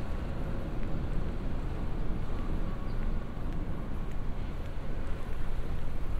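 City street ambience: a steady low rumble of distant traffic and air, with faint footsteps on paving stones.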